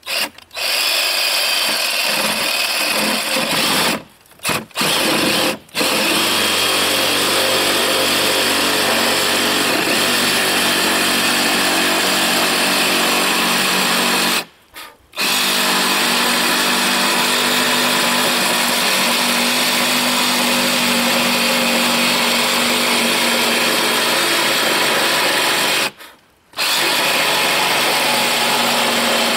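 Cordless reciprocating saw cutting through a sheet of OSB, running steadily under load. It stops briefly about four seconds in and restarts twice in quick succession, then pauses again around the middle and once more near the end.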